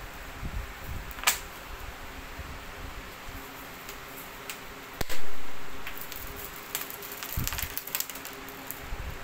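Rustling and crackling of embroidered, sequined dress fabric as it is lifted and spread by hand, with scattered sharp clicks. One loud thump comes about five seconds in and dies away over about a second.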